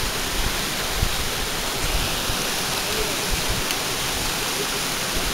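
Mountain stream rushing over rocks and spilling down a small cascade into a pool: a steady, even rush of water, with uneven low rumbling underneath.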